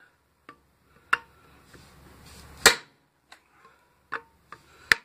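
Hammer blows on a cold chisel driven alongside the weld of a microwave transformer's steel core, cracking the seam open. Three hard strikes about a second and a half apart, the middle one loudest, with lighter taps between them.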